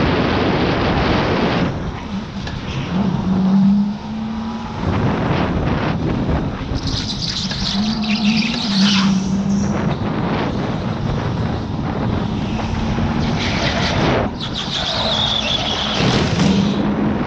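Electric go-kart driven at speed, heard from on board: the electric motor's steady hum under a rush of wind and track noise. The tyres squeal through corners about halfway in and again near the end.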